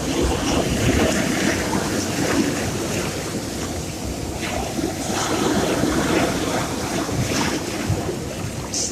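Sea waves washing on a shore: a steady rushing that swells and eases. A few short, high clicks sound through it, one near the end.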